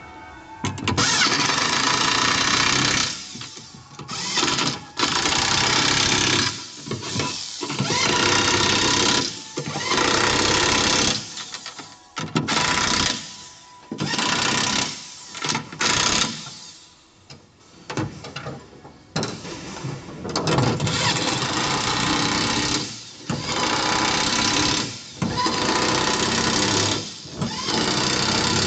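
Corded electric impact wrench running in repeated bursts of one to three seconds with short pauses between, driving bolts one after another through a steel angle bar.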